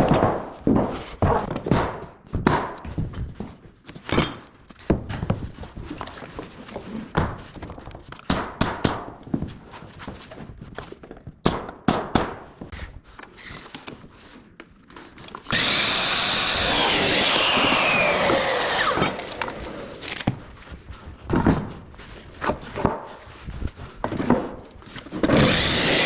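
Irregular knocks and thumps of timber being handled and worked, then about two-thirds of the way through a power saw runs for about two seconds and winds down with a falling whine as the motor is released.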